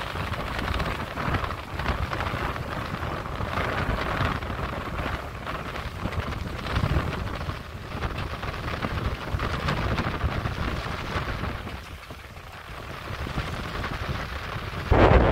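Wind buffeting the microphone, with a low rumble, over the hiss of water rushing past a sailboat's hull in a choppy sea. The noise rises and falls, eases briefly near the end, then jumps suddenly louder in a strong gust.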